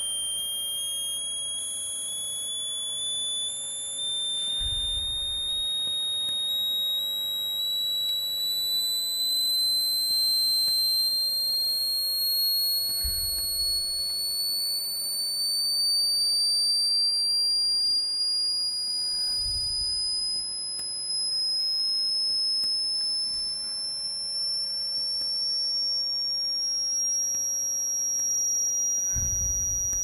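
Small passive buzzer on an Arduino breadboard, driven by the Arduino's tone() output, sounds one continuous, piercing high-pitched tone that climbs slowly and steadily in pitch. The push button is held down, so the code raises the frequency by 10 Hz every loop, sweeping the tone upward.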